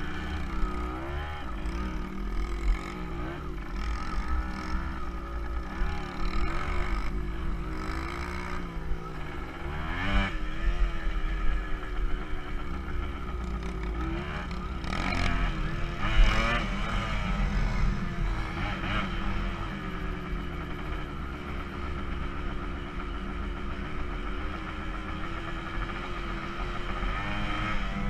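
Kawasaki KE100's single-cylinder two-stroke engine running under a rider, its pitch rising and falling again and again with the throttle, over a steady low rumble.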